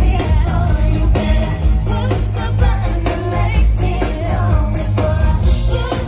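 Live pop band with drums, bass and electric guitar playing loudly under female lead vocals, heavy in the bass.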